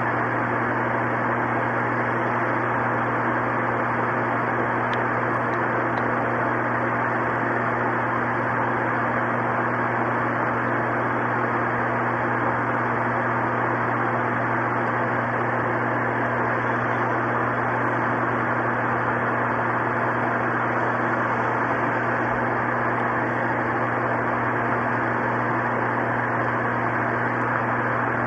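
Steady, unchanging hiss with a low hum underneath.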